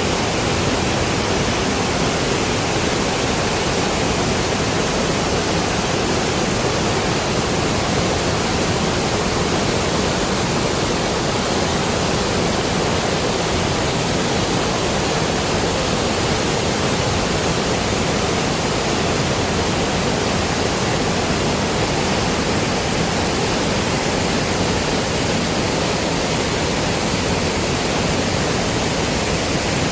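Waterfall pouring steadily: a loud, even rush of falling water with no change throughout.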